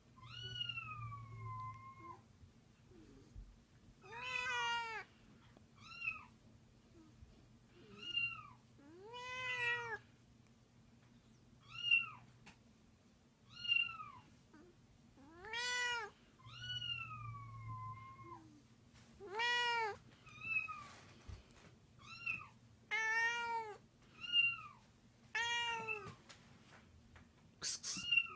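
A string of cat meows, one about every one to two seconds, from several different-sounding cats. Some are short rising-and-falling calls, others longer meows that slide down in pitch. The same calls recur identically, as in a recording of meowing cats being played back.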